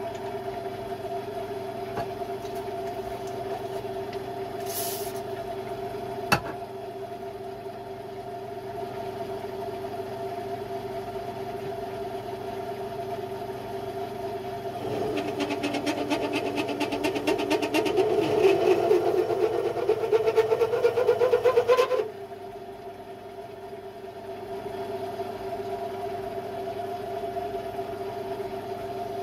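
Small metal lathe running with a steady motor hum while the turbine's main shaft is turned. About halfway through a cut is taken: a louder, rough, fast-pulsing chatter with a slowly rising pitch that stops suddenly after about seven seconds, leaving the motor running on its own.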